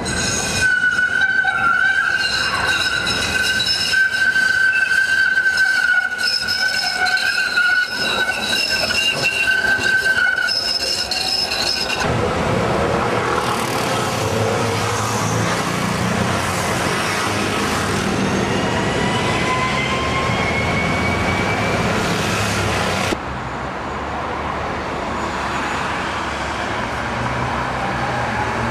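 Modern articulated tram's wheels squealing on curved track, one steady high-pitched screech lasting about twelve seconds. After that comes street traffic noise with a rising whine, and near the end a city bus passes.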